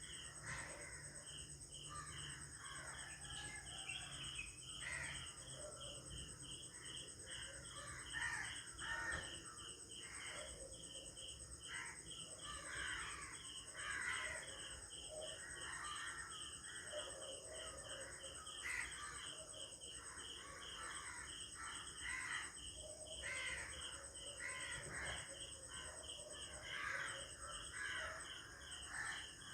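Early-morning village ambience: birds calling at irregular intervals, including cawing, over a steady high insect drone and a regular pulsing chirp repeating a few times a second.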